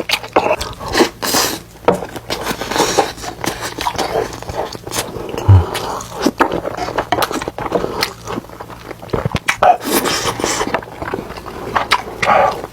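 Close-miked eating sounds: chewing and biting stir-fried squid, with wet smacking clicks and short crunchy bursts at an irregular pace.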